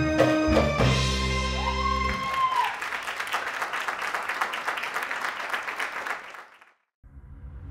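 A live Middle Eastern band on keyboard and hand drums plays the closing notes of a belly-dance piece, ending about two seconds in. Audience applause follows and fades away near the end.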